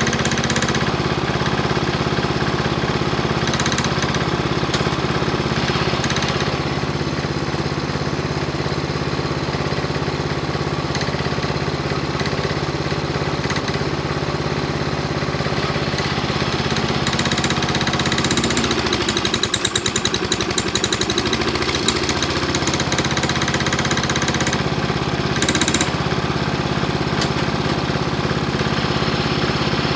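Craftsman garden tractor engine running steadily while its front-end loader digs dirt. A little past the middle, the engine note dips and recovers over a few seconds.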